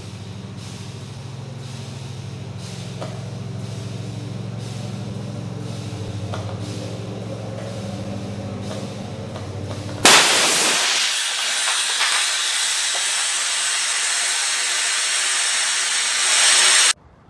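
A steady low hum slowly grows louder as the high-pressure line is pressurised toward 17,000 PSI. About ten seconds in, a sudden loud bang as the pipe connection fails under pressure, then a loud steady hiss of escaping pressure that cuts off sharply near the end.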